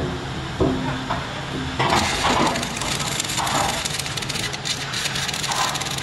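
Heavy steel machine frame being pushed into a shipping container: scraping and creaking of metal against the container floor, with a few short pitched creaks in the first couple of seconds, over steady workshop noise.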